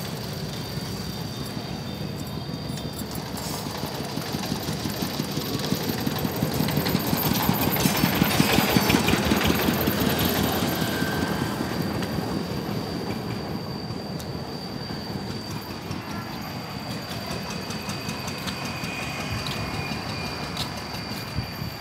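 Engine of a passing vehicle with a rapid, even beat, growing louder to a peak about nine seconds in and then fading away.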